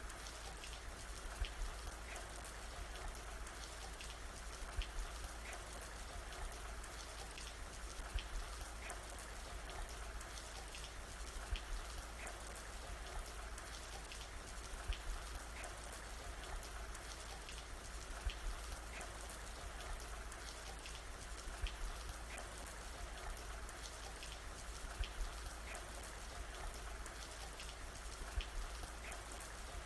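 Steady rain falling on a surface, a constant hiss with individual drops ticking through it. A cluster of louder drips comes back at even spacing, about every three and a half seconds.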